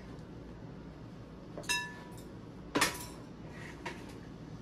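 Glass kitchenware clinking twice, about a second apart, each clink ringing briefly, followed by a faint tick.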